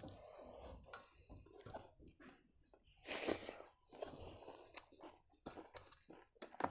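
Quiet close-up eating sounds: a person chewing rice and buffalo meat, with small wet squishes and clicks of fingers mixing rice on a steel plate. One louder noisy burst comes about three seconds in.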